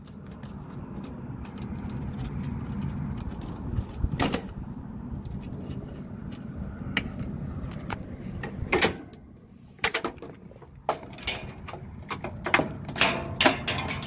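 Clicks and scrapes of spade connectors being pulled off and pushed onto the primary taps of an HVAC unit's 24-volt control transformer, as its supply lead is moved to the 208-volt tap, over a steady low rumble. A few scattered clicks come in the first half, and a quick run of them near the end.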